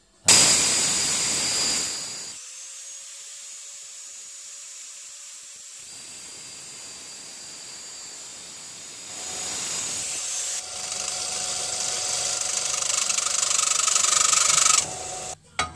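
Black & Decker angle grinder with a thin cut-off disc cutting aluminium sheet, and a bench disc sander grinding the cut edge. A loud burst of cutting in the first two seconds gives way to quieter steady running, louder grinding returns from about nine seconds, and the sound stops abruptly near the end.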